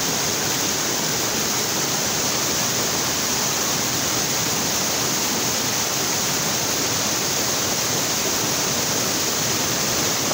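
Mountain stream swollen with rainy-season water, rushing fast over rocks: a steady, unbroken rush of white water.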